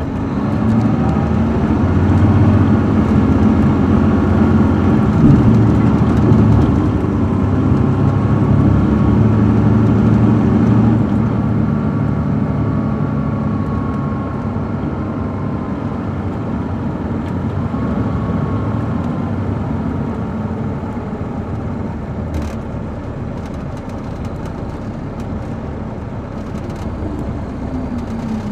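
Caterpillar C13 ACERT diesel engine of a 2007 MCI D4500CL coach, heard from inside the bus, pulling hard under acceleration for about ten seconds. It then eases to a lighter, steadier run, with a whine rising and falling in pitch. Near the end the engine note falls as the coach slows.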